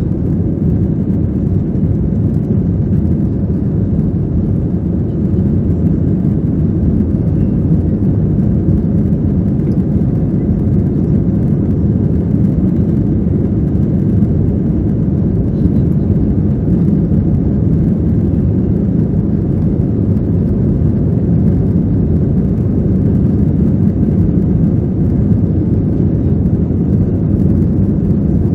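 Steady low roar inside the cabin of an Airbus A321-231 climbing out after takeoff: its IAE V2500 engines at climb power together with the rush of air over the fuselage.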